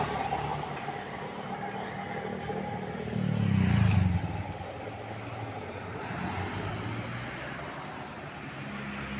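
Road traffic passing, with a heavy vehicle's engine going by close and loudest about three to four seconds in, then fading back to steady traffic noise.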